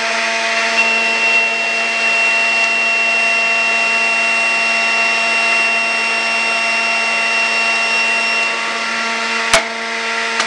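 Electric juicer's motor running steadily with a high whine as limes are pushed down its feed chute. A single sharp knock comes about nine and a half seconds in.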